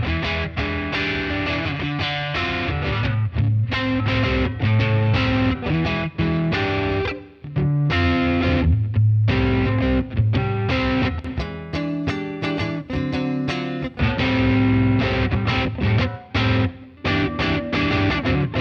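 Electric guitar played through a J Rockett "The Dude" overdrive pedal, a Dumble Overdrive Special–style drive, giving a mildly overdriven tone. The playing mixes chords and single-note lines, with a brief pause about seven seconds in.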